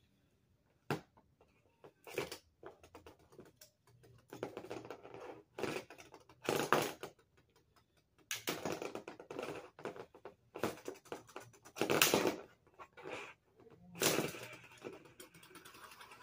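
Lego-brick spinning tops clashing in a battle arena: irregular bursts of hard plastic clacking and rattling as they hit each other and the plastic wall. There are sharp single clicks about one and two seconds in, and the loudest clash comes about three quarters of the way through.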